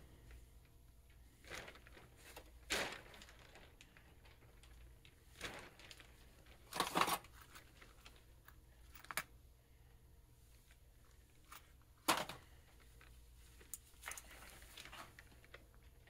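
Handling noises of gloved hands working a ball joint and snap ring: scattered faint rustles and clicks, the loudest a short cluster about seven seconds in and a sharp click about twelve seconds in.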